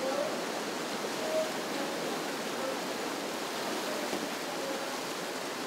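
Steady rushing of whitewater rapids, a continuous even roar of churning river water.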